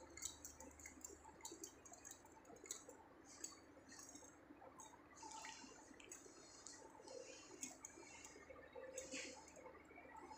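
Near silence: a faint steady low hum with scattered light ticks and clicks.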